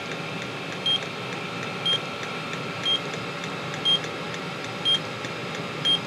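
Carbon monoxide meter alarm beeping, a short high beep about once a second, six times, over the steady running noise of a diesel heater. The alarm is set off by high carbon monoxide, around 500 ppm, as the heater lights.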